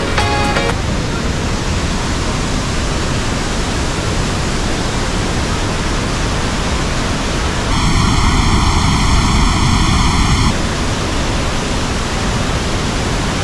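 Roar of Iguazu Falls: a loud, steady rush of falling water that starts abruptly. For about three seconds near the middle the rush takes on a hollow, swishing colour.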